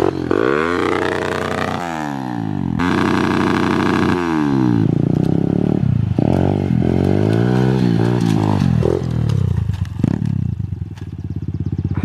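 A pit bike's small single-cylinder engine revving up and down repeatedly as it pulls away and rides on a rear wheel wrapped in Rubik's cubes, with some clatter mixed in.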